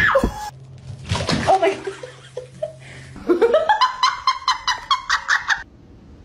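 A person's high-pitched laughter in quick repeated bursts for about two seconds, starting around the middle, after a stretch of indistinct noise.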